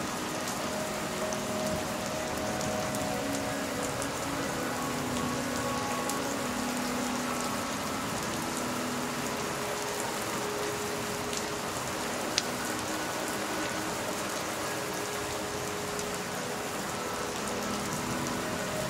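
Steady rain falling, an even hiss of drops. A single sharp click about twelve seconds in.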